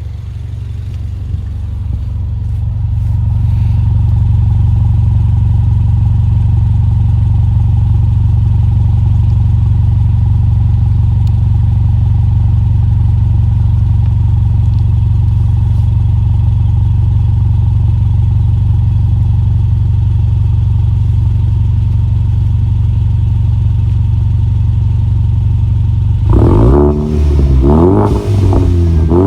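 2015 Ford Mustang EcoBoost's turbocharged 2.3-litre four-cylinder, heard at the exhaust tailpipe, idling steadily, then revved a few times near the end with the pitch rising and falling.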